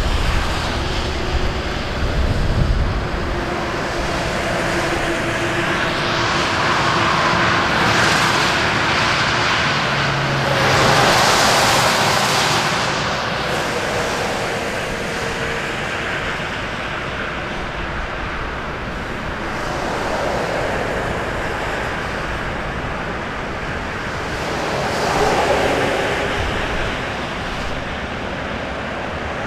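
A column of cars and farm tractors driving slowly past close by: steady engine and tyre noise on a wet road, swelling as vehicles go by, loudest about eleven seconds in. Wind buffets the microphone in the first few seconds.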